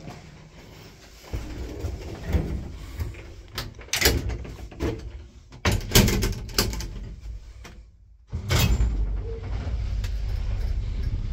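Doors of an old IFMA T142 traction lift being shut by hand: knocks and clatters as the car's two wooden door leaves are pulled together, the loudest about four and six seconds in. About three-quarters of the way through, a steady low hum starts and holds: the lift running.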